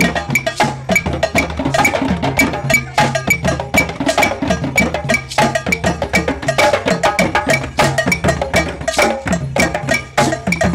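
Drum circle of hand drums, congas and djembes, played together in a fast, steady rhythm of many strikes a second, with a bright wooden clicking part on top.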